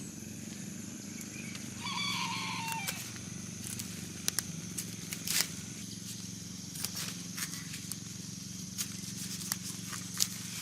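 Outdoor rural ambience: a steady low hum and a steady high-pitched hiss, scattered short clicks, and one brief animal call about two seconds in.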